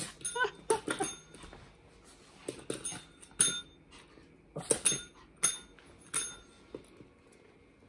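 A dog's paw strikes a small tabletop training call bell about five times, in quick dings with a short metallic ring, from about three to six seconds in. Near the start there are a few short squeaky vocal sounds.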